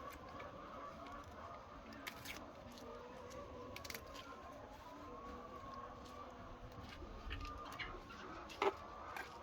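A flock of laying hens calling faintly, with drawn-out, wavering calls over a low background, broken by a few sharp clicks, the loudest near the end.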